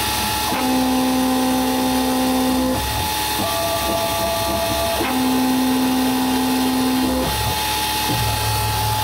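Converted X2 mini mill running a CNC center-drilling program: the spindle motor whines steadily while the axis drive motors hum at a fixed pitch, starting and stopping every second or two as the table moves between positions.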